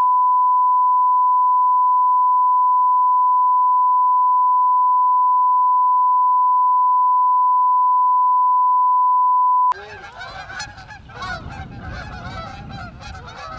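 A steady 1 kHz test tone held at one pitch for about ten seconds, cutting off abruptly. It gives way to a busy outdoor recording full of overlapping, wavering calls of a flock of birds.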